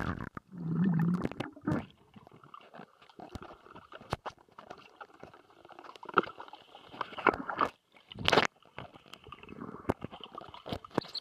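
Swimming-pool water heard from underwater: muffled gurgling, bubbling and water movement, with a low muffled hum about a second in and a few sharp knocks.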